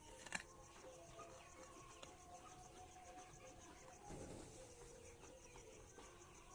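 Faint chickens calling softly in a poultry shed, over a steady high-pitched chirping that pulses about six times a second.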